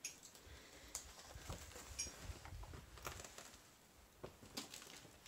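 Faint footsteps with scattered light clicks and crackles of debris underfoot.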